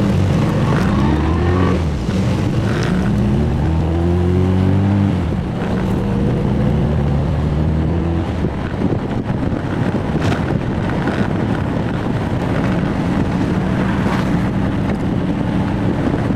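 1966 Triumph Spitfire's 1147cc four-cylinder engine pulling hard through the gears. Its pitch climbs, drops at a gear change about five seconds in, climbs again, then settles to a steady cruise.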